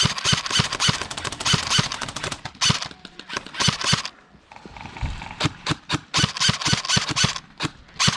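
Airsoft guns firing in long rapid strings of sharp cracks, about five to seven a second, with a short break about four seconds in.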